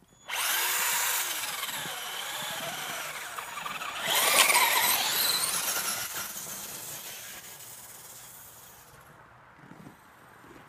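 Electric RC car motor whining under throttle, its pitch rising and falling, loudest about four seconds in, then dying away over several seconds.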